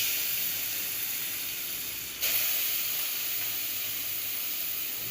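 Grated carrot sizzling in hot ghee in a pressure cooker: a steady hiss that starts suddenly and grows louder again about two seconds in.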